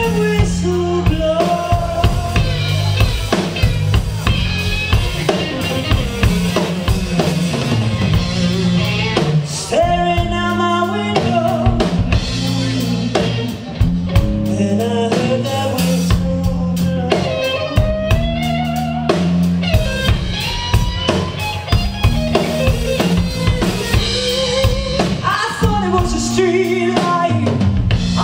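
Live band playing: drum kit, bass guitar and electric guitar, with a woman singing into a microphone.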